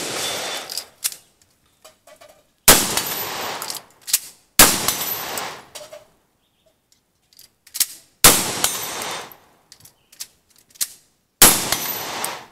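Shotgun fired five times, one shot every two to four seconds, each blast trailing off over about a second. Small clicks and knocks come between the shots.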